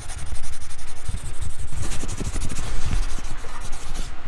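Pencil scribbling and shading hard on paper: a continuous, scratchy rubbing made of rapid strokes.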